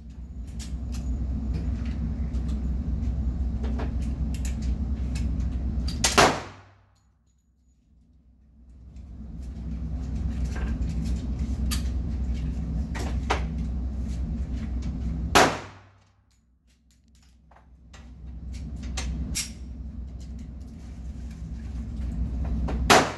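Three shots from a .45 pistol on an indoor range, about nine seconds apart, each a sharp, loud crack that cuts off suddenly. Between shots there is a steady low hum.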